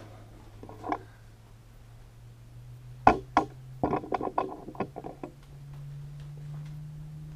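A camera on its tripod being picked up and set down closer: a sharp knock about three seconds in, a second just after, then a quick cluster of bumps and clatters.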